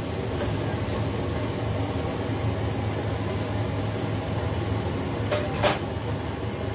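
A steady low hum from the kitchen, with two short clinks of a pan or utensil about five and a half seconds in.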